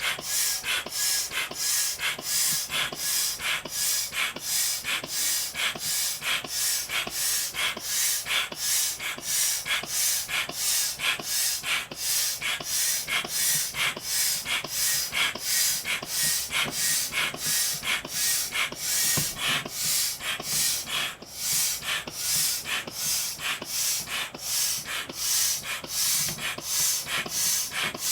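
A person blowing up an inflatable vinyl cushion by mouth: quick, even breathy puffs and intakes, about two a second, without a pause.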